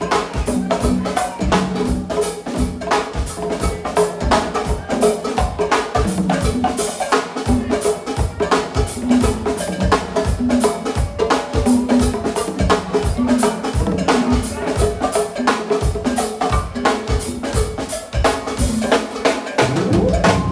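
Live drum kit played hard and fast: dense snare, rimshot and bass drum strokes over held low pitched notes, stopping abruptly at the end.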